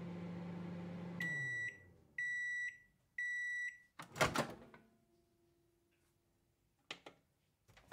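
Microwave oven ending its cycle: the running hum winds down, three beeps mark the end of the cooking time, then the door pops open with a loud clunk. A couple of light clicks follow near the end.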